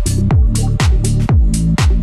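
Electronic dance music with a steady kick drum about twice a second and crisp high percussion over a bass line.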